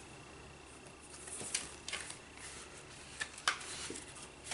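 Faint handling of paper or card, soft rustling with a few light ticks and taps. A faint steady high whine sits behind it.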